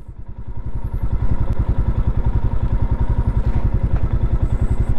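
Royal Enfield Himalayan's single-cylinder engine running at low revs, its exhaust beat an even, rapid pulse, picking up in level about a second in.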